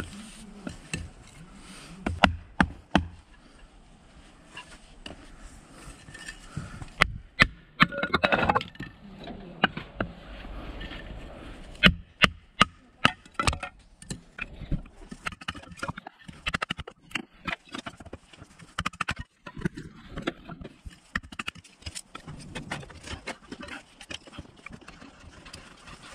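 Softwood board being split into kindling with a hatchet: repeated sharp wooden knocks and cracks, coming in groups, as the blade is driven in and the board splits. Near the end come quicker, lighter taps.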